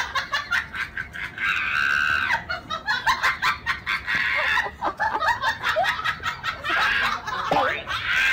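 Husky chewing a squeaky toy, setting off many short, high squeals in quick succession with clicks of teeth on the toy.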